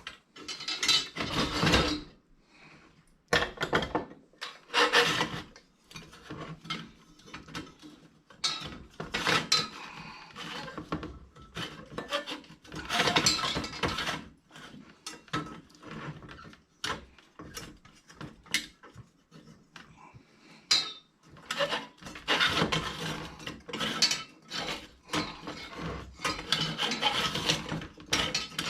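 Metal parts of a Coleman 220F lantern being wiggled and worked loose by hand: irregular scraping, rubbing and clinking with brief pauses.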